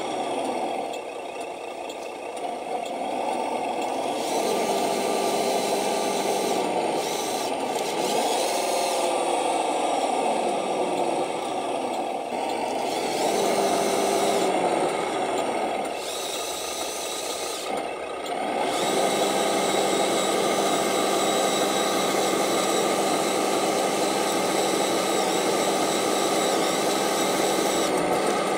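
Radio-controlled Scania model truck's electric drive motor and gearbox whining as it crawls heavily loaded through mud. The pitch rises and falls with the throttle, and the whine eases off twice, once a second or two in and again about two-thirds of the way through.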